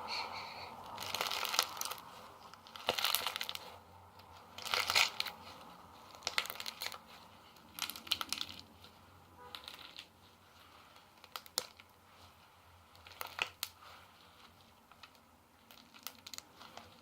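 Iceberg slime being squeezed and poked by hand, its hardened crust crunching and crackling in irregular bursts of small crisp clicks and pops.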